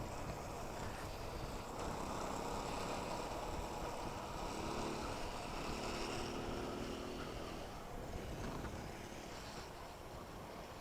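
Motorcycle coasting downhill with its engine switched off: steady wind and tyre-on-road noise. A faint hum comes in about four and a half seconds in and fades out around seven and a half seconds.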